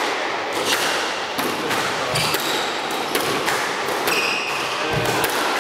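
Squash rally: the ball knocking sharply and irregularly off racquets and court walls, echoing in the court, with short high squeaks of players' shoes on the court floor.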